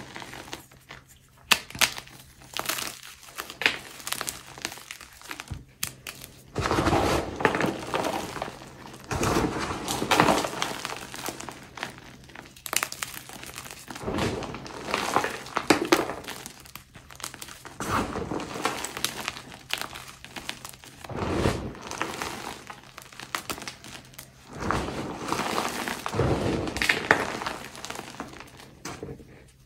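Blocks of dyed gym chalk being crushed and crumbled: bursts of crunching and crackling, some with sharp snaps, coming every few seconds.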